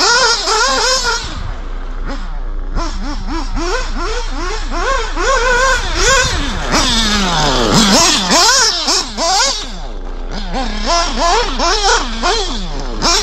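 Nitro RC buggy's FX engine revving up and down over and over as it is driven, its high pitch swinging with each throttle blip. About seven to eight seconds in, the pitch falls a long way and climbs back up.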